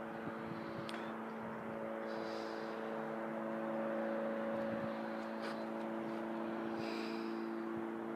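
Level crossing audible warning alarm sounding continuously as a steady tone while the red road lights flash, warning road users that a train is approaching.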